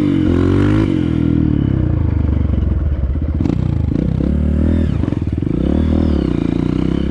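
Dirt bike engine on the move, revved up and down several times, with dirt and gravel clattering under the spinning rear wheel.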